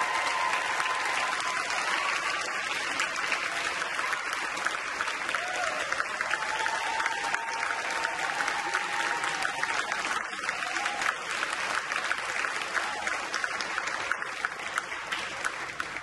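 Theatre audience applauding steadily at the end of a ballet dance.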